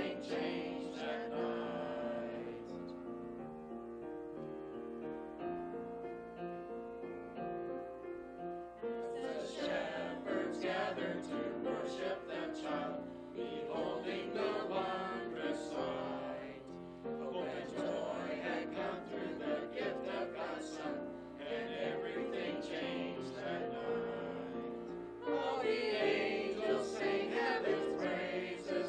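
Small mixed church choir singing a Christmas cantata with instrumental accompaniment. The singing thins out for a few seconds, comes back fuller about nine seconds in, and swells louder near the end.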